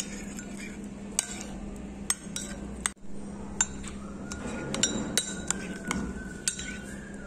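Metal spoon stirring a thick mayonnaise mixture in a ceramic bowl, clinking against the bowl's sides: about a dozen sharp, irregular clinks with a short ring.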